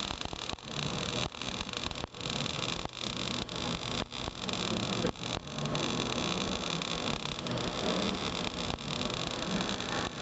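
MIG welding arc with 1.0 mm wire at 21 volts, crackling and hissing steadily as the bead is laid up a vertical joint, with brief breaks in the sound about once a second.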